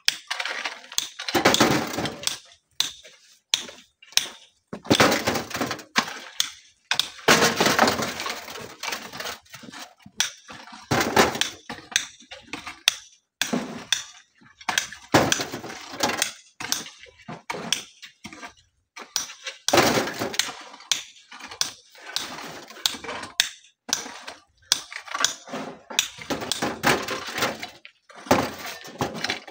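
Shovels and hoes scraping through gravel, with stones clattering into steel wheelbarrows in irregular bursts and occasional sharp clinks of rock on metal.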